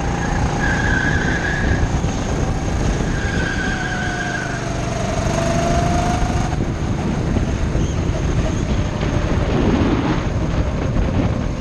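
Go-kart engine running at speed under an onboard camera, its pitch dipping and rising again about halfway through, with heavy wind rumble on the microphone. Twice in the first few seconds the tyres give a short high squeal through a corner.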